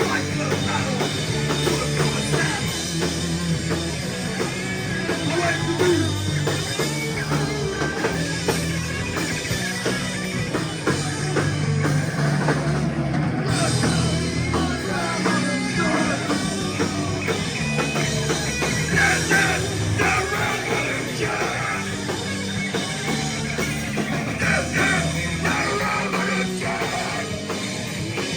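Rock band playing live, with a drum kit driving the song.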